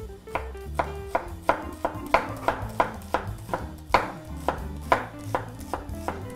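Chef's knife chopping a shallot on a wooden cutting board: quick, regular knife strikes, about three a second, over background music.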